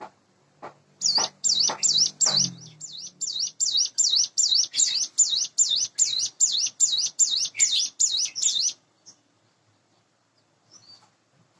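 A caged ciblek gunung (hill prinia) singing a fast series of repeated high, swooping notes, about three to four a second for some seven seconds, then stopping abruptly, with a few faint chirps afterwards. A few soft knocks sound in the first couple of seconds.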